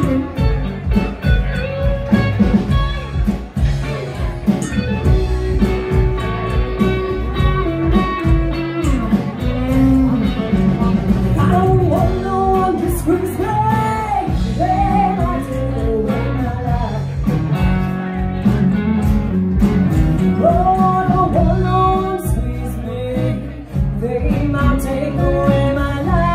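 Live band playing with electric and acoustic guitars, and a woman singing lead over them for much of the song.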